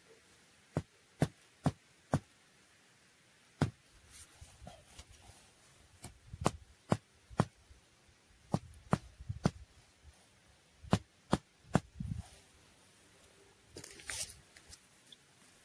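Irregular sharp knocks and clicks, some with a duller thud beneath, and a brief rustle near the end.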